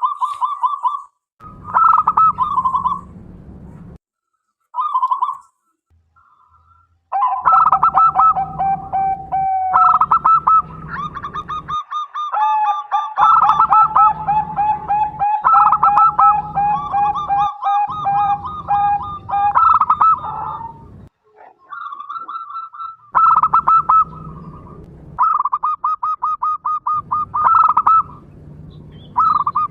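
Zebra doves (local perkutut) cooing in rapid, trilled phrases, repeated again and again. Through the middle stretch two or more birds call over one another, one of them lower-pitched. There are short quiet gaps near the start.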